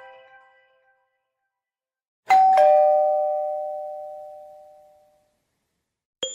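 Built-in chime sound of an Alcatel OneTouch POP C3 phone: a two-note falling ding-dong like a doorbell, ringing out and fading over a couple of seconds. Before it, the end of the previous ringtone melody dies away, and a new sound begins just at the end.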